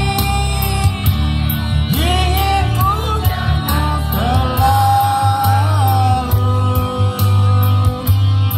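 A song playing: a singing voice carrying held, gliding notes over a heavy bass line and a steady drum beat.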